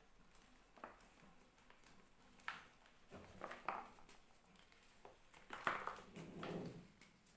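Reformed gym chalk crunching and crumbling as it is crushed, in several separate soft crunches, the loudest and longest about three-quarters through.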